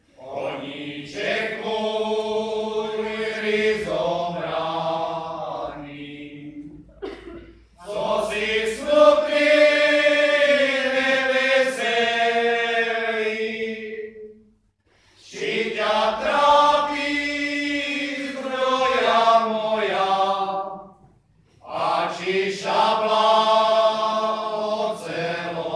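Male folk choir singing a Slovak folk song a cappella, in four long phrases separated by short breath pauses.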